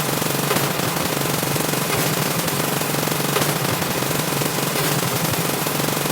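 Car horn beeps repeated so fast that they merge into one loud, harsh, continuous rattle, steady throughout.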